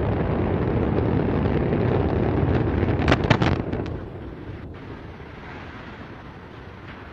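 Antares rocket's launch roar, a steady deep rumble, broken about three seconds in by a quick cluster of sharp bangs. After the bangs the roar falls away to a weaker rumble, consistent with the launch failing and the vehicle exploding.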